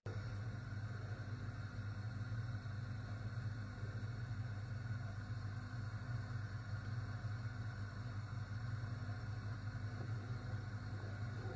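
Steady low hum from the kitchen range under a pot of milk being heated; it starts abruptly and stays even.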